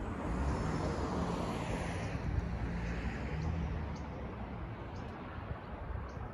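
A car drives past on the street: its tyre and engine noise swells in the first second or two, drops in pitch and fades away by about four seconds in. A few faint, short high chirps follow near the end.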